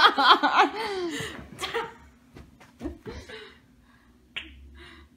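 Laughter, then a string of sharp clicks and pops as a man acts out popping his finger joints without really cracking them.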